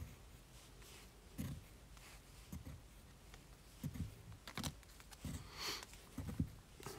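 Faint, scattered clicks and soft knocks of small things being handled, with a brief rustle near the end.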